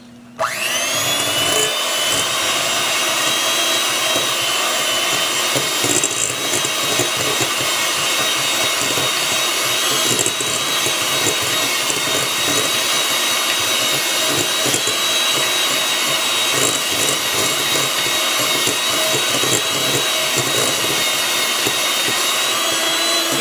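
Electric hand mixer switched on about half a second in, then running steadily with a constant whine as its beaters cream butter, sugar and brown sugar in a glass bowl.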